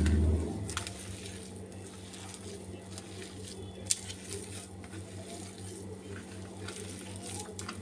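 Hands mixing mashed potato with chopped onion and spices in a steel plate: soft irregular squishing and rubbing against the metal, with a low bump at the start and a sharp tick about four seconds in, over a steady low hum.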